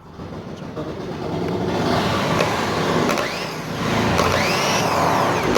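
Car starter motor powered up on test, spinning with a rattling whirr. Its whine rises and falls several times as it runs up and winds down.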